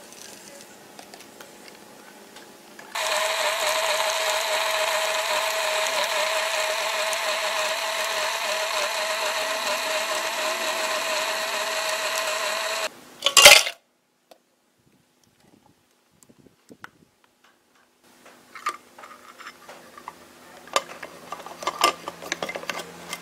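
Countertop blender motor running steadily with a slightly wavering hum, blending milk, frozen banana and strawberries into a smoothie, then cutting off about ten seconds later. A sharp knock follows, and near the end come a few light clicks and knocks of cups and a lid being handled.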